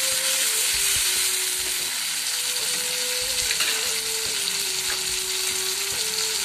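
Chopped onions and tomatoes sizzling steadily in hot oil in an iron kadhai, with a few light scrapes of a metal slotted spoon stirring them near the start.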